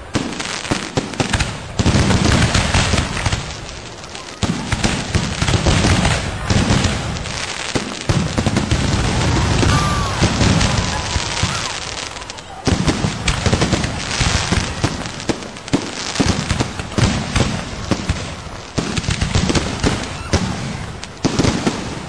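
Fireworks going off in rapid, overlapping succession: a dense barrage of sharp cracks and deep booms, with short lulls.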